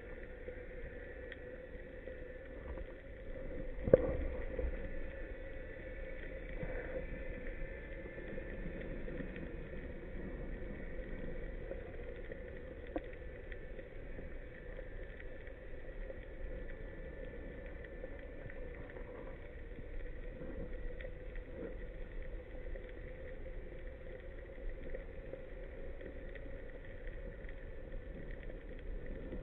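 Underwater ambience through a waterproof camera housing: a steady hiss with a faint steady hum, broken by one sharp knock about four seconds in and a small click later.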